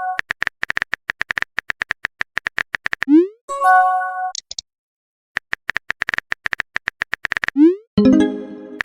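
Texting-app sound effects: rapid keyboard typing clicks, twice broken by a rising pop and a short chime as a message is sent.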